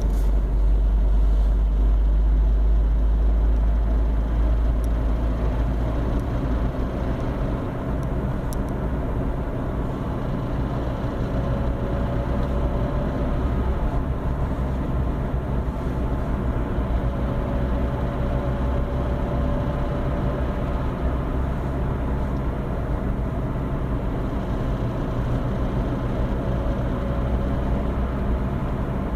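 Renault Clio 1.2 petrol engine running, its pitch slowly rising a few times, with the very fast, irregular clicking that appears when the accelerator is pressed and increases with engine speed.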